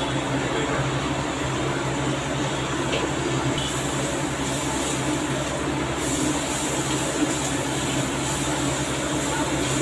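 Steady hum of an induction cooktop with water simmering in a steel frying pan; the hiss grows brighter about halfway through.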